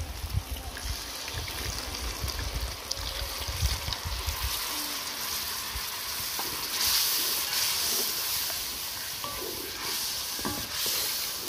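Curry spice paste frying in a hot iron wok, sizzling as a wooden spatula stirs and scrapes it, with low knocks of the spatula against the pan. After liquid is added, the pan hisses louder about seven seconds in and again near the end.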